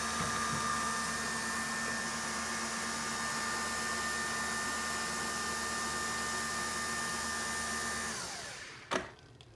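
Nespresso Vertuo Plus brewing, its motor spinning the capsule with a steady whirring hum and whine. About eight seconds in the spin winds down in a falling pitch as the brew finishes, followed by a single sharp click.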